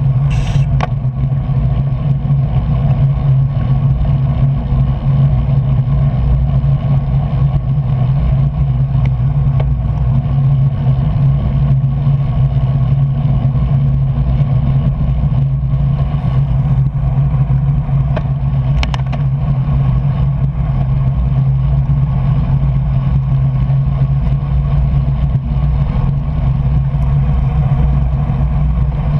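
Steady wind rush and tyre noise of a road bicycle at racing speed, with a couple of brief clicks, one just after the start and one a little past halfway.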